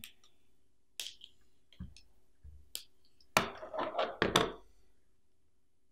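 Handling knocks and clicks: a few scattered sharp clicks, then a denser run of knocks about three and a half seconds in, as the trace heating cable and tools are handled and set down on a wooden desk.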